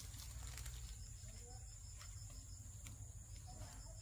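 Steady high-pitched insect chorus with a low rumble underneath and a few faint clicks.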